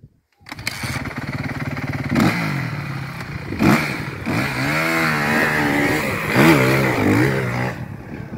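Off-road vehicle engine revving under throttle, its pitch rising and falling again and again, with sharp surges about two, three and a half, and six and a half seconds in. It cuts in abruptly after a brief silence and eases off near the end.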